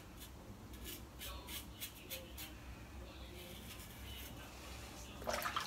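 Safety razor scraping through lathered scalp stubble in short, quick strokes, about three a second at first, then fewer. A short, louder sound comes near the end.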